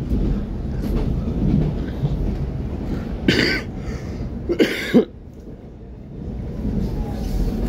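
Electric train running, heard from inside the passenger car: a steady low rumble from the wheels and track. Two short coughs cut in about three and four and a half seconds in. Just after five seconds the rumble drops away sharply, then builds back up.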